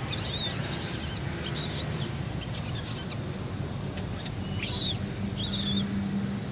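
Baby macaque giving a series of short, high-pitched wavering squeaks, several in the first three seconds and two more near the end, over a low steady background rumble.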